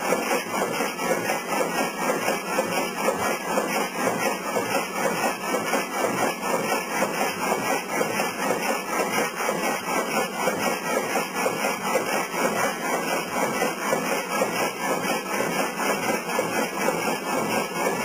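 Historic vertical frame saw, belt-driven by an old electric motor, running steadily as its reciprocating blade frame cuts through a log. It makes a continuous rhythmic clatter.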